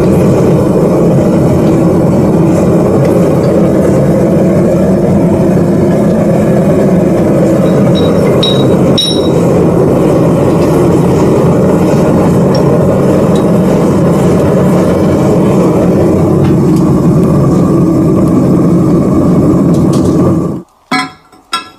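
Gas burner of a crucible melting furnace running with a loud, steady rushing noise. It cuts off suddenly near the end, followed by a few short knocks.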